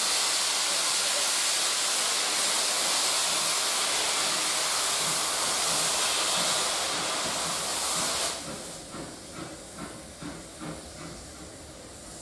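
Steam train departing: a loud, steady hiss of escaping steam that cuts off sharply about eight seconds in, followed by a quieter rhythmic beat, about two to three a second, as the train pulls away.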